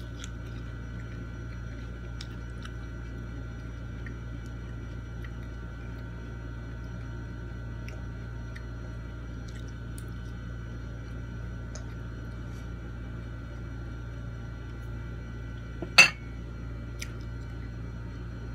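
Quiet eating with a steady background hum and faint, scattered small clicks. About three-quarters of the way through, a single sharp clink of a drinking glass rings briefly as it is picked up, followed by a lighter tap.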